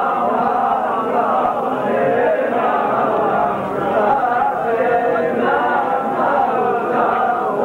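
A group of men chanting a funeral lament together in Arabic, many voices overlapping in one long, unaccompanied line.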